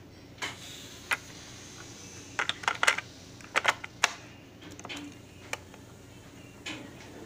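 Clear plastic cassette clicking and clattering as it is fitted into a cassette deck's open tape door. There is a run of short, sharp plastic clicks, most of them bunched together around the middle.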